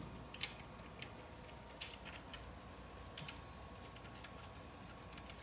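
Faint, irregular small clicks and ticks, about a dozen, from nuts being threaded onto bolts by hand.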